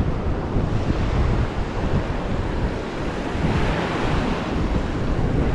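Wind buffeting the microphone over the wash of surf breaking on a sandy beach, with a wave's hiss swelling louder a little past the middle.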